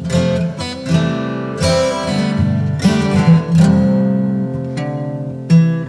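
Background music led by a plucked acoustic guitar, notes picked out one after another and left to ring.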